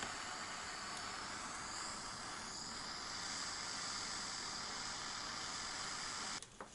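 Handheld butane micro torch burning with a steady hiss while it heats a copper bar to solder it onto the BMS bus bar; the hiss cuts off suddenly near the end as the flame is shut off.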